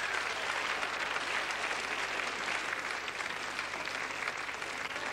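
Theatre audience applauding steadily in welcome of an announced guest singer.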